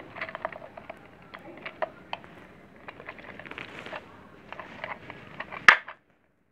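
Plastic parts of a toilet cistern fill valve (ball cock) being handled: scattered small clicks, taps and rubbing, with one sharp click near the end, after which the sound cuts off suddenly.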